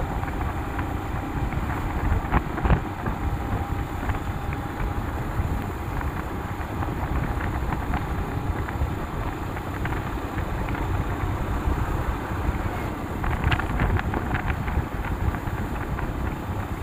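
Wind buffeting the phone's microphone on a moving motorcycle: a steady rushing rumble with the motorcycle running beneath it, and a few brief crackles of handling noise.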